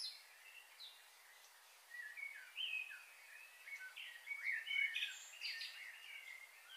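Birds chirping, a string of short call notes that comes thick from about two seconds in, over a faint steady hiss.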